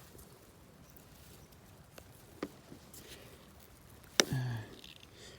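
Quiet, with a few faint clicks, then one sharp knock about four seconds in, followed by a brief low hum.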